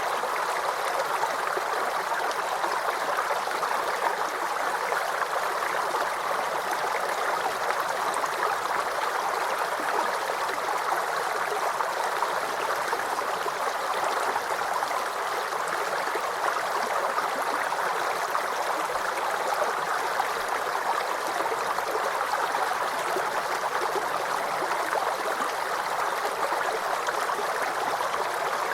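Small forest creek babbling and gurgling, a steady, unbroken rush of running water.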